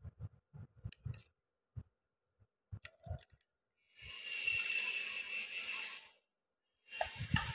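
Light taps and clicks of hands handling a thin plastic package, then about four seconds in a plastic bag crinkling for about two seconds, with another short crinkle near the end.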